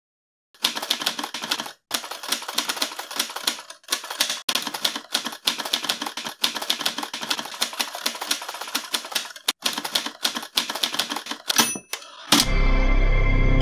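Typewriter keys striking rapidly in runs with short pauses, then a short bell ding near the end. Music with a deep low tone comes in about a second before the end.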